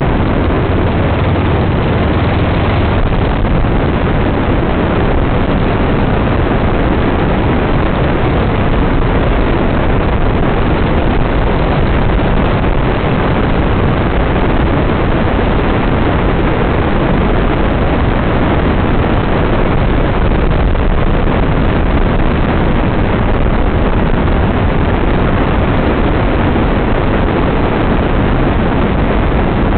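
Off-road vehicle's engine running steadily at speed over sand, with a loud, even rumble of engine and travel noise throughout.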